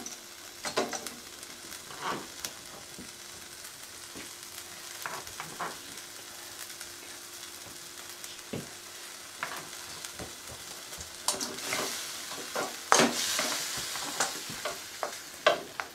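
Chunks of chicken sizzling in a frying pan, a steady hiss broken by scattered clicks and knocks. The sizzle swells louder for a couple of seconds near the end.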